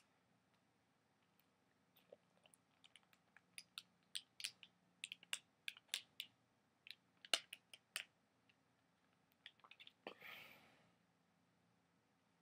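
Biting and chewing on a frozen Otter Pop freezer pop in its plastic sleeve: a string of sharp, irregular crunches of ice and plastic, then a short breathy rush about ten seconds in.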